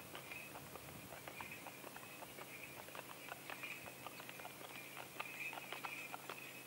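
Horse's hooves clopping on an asphalt road at a walk, faint, with many quick irregular clicks.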